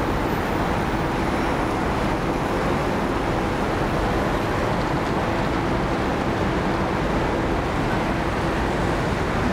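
Steady city street traffic: a continuous hum of passing cars and buses.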